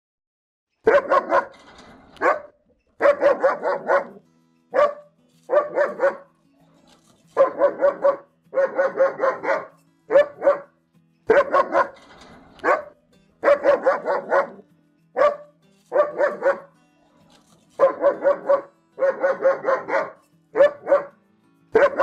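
German Shepherd dog barking in quick volleys of one to several barks each, with short pauses between, starting about a second in.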